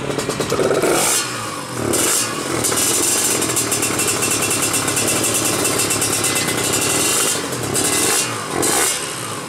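Tuned two-stroke Kawasaki Ninja 150 drag-bike engine free-revving on a stand. A couple of quick throttle blips are followed by a long held rev of about five seconds, then two more short blips near the end.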